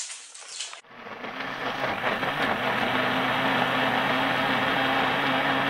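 Electric kitchen blender running, blending the cassava-pudding batter. It starts about a second in, builds up briefly and then runs steadily.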